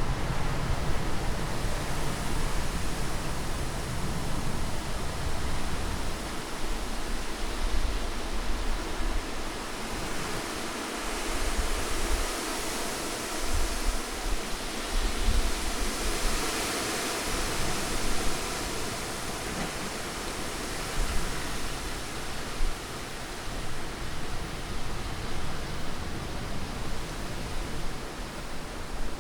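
Continuous rushing wind noise, swelling and easing in gusts, with a deep rumble that is strongest near the start.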